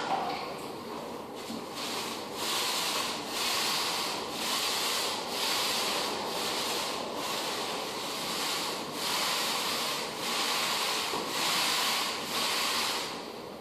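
Applicator pad on a pole being pushed back and forth over a hardwood floor, wiping on a coat: a steady scrubbing hiss that swells with each stroke, about one and a half strokes a second.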